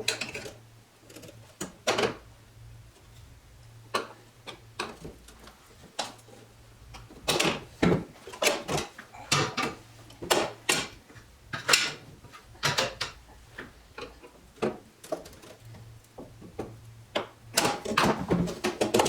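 Irregular metallic clicks, clacks and knocks of a steel tool box drawer and its drawer slides being handled and worked, coming in clusters with a busy run of them in the middle and another near the end.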